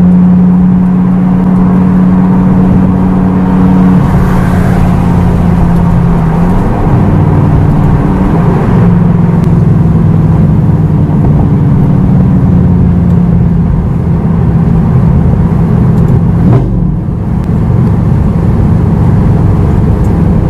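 Lamborghini Gallardo LP560-4's V10 running through an Armytrix valved exhaust with the valves open, heard from inside the cabin while driving. The steady engine note steps in pitch a couple of times in the first seven seconds and dips briefly about 16 seconds in.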